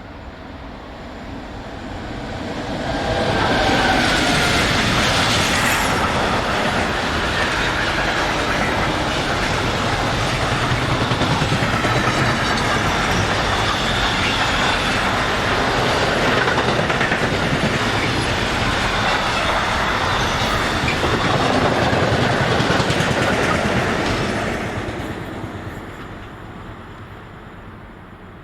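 A train passing close by on the track: the rolling noise builds over the first few seconds, stays loud for about twenty seconds, then fades away.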